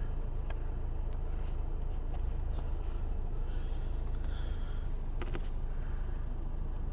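A few light clicks and taps of plastic dashboard trim being handled and fitted back into place, over a steady low rumble.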